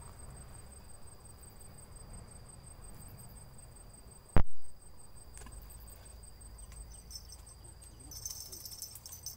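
Insects, crickets or cicadas, calling steadily as two high thin tones, the higher one pulsing. A single sharp knock sounds about four and a half seconds in, louder than anything else, and a high jingling rattle starts near the end.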